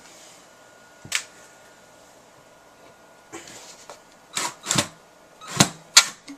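Handling noise from a cordless drill and a long wood screw being set against a wooden board: a single knock about a second in, then a few sharp clicks and taps near the end as the screw tip is placed.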